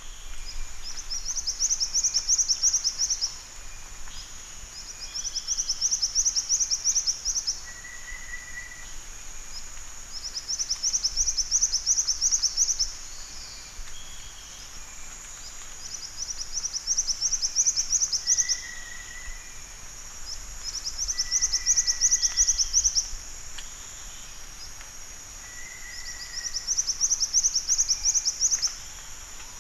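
Black-winged flycatcher-shrike calling: a high, rapid trill about two seconds long, repeated six times at intervals of roughly five seconds, over a steady high-pitched hiss.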